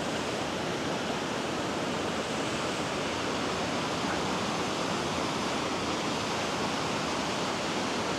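Waterfall on a small beck: a steady roar of falling water that keeps an even level throughout.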